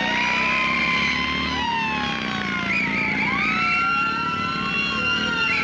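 Several police motorcycle sirens wail at once, their pitches rising and falling and crossing each other. A trilling whistle sounds again every couple of seconds over them.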